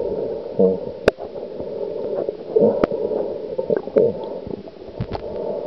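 Muffled underwater gurgling and rumbling picked up by a camera held underwater, with a few sharp clicks and brief muffled voice-like sounds.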